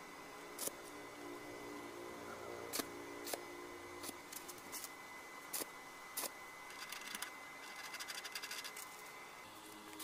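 Sharp metal clicks and knocks from parts being handled and fitted during assembly of a gear reduction unit, with a run of rapid clicking about two-thirds of the way through.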